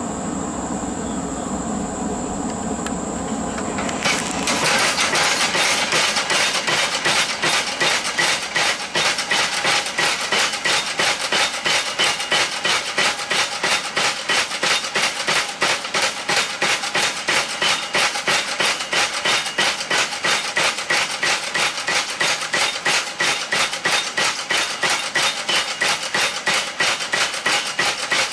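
A steady rushing noise for about the first four seconds, then a homemade belt-driven power hammer pounding a red-hot railroad spike, its ram striking in an even rhythm of about three to four blows a second.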